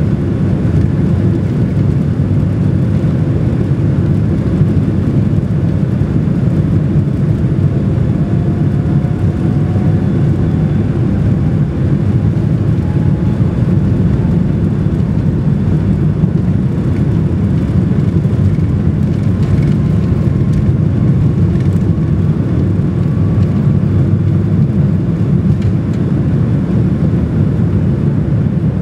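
Cabin noise of a Boeing 737-800 on its take-off roll: the CFM56-7B engines at take-off thrust and the rumble of the wheels on the runway, a loud, steady noise. A faint whine rises slowly in pitch through the middle.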